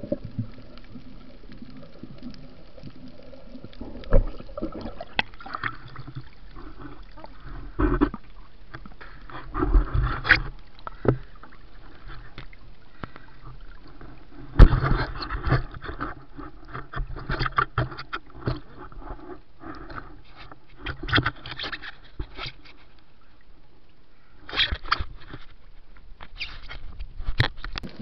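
Underwater camera audio: water sloshing and gurgling around the camera housing, broken by irregular knocks and clicks of handling, in scattered clusters.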